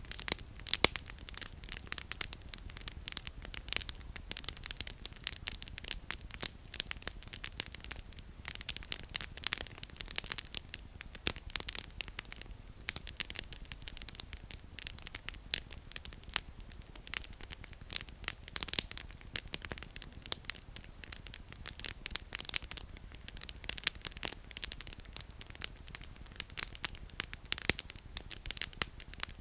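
Wood campfire burning, with dense, irregular crackling and popping of the firewood over a low, steady background hiss.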